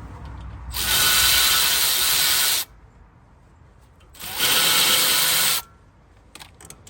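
Handheld power tool run in two bursts, about two seconds and then about a second and a half, spinning out bolts on a front brake caliper.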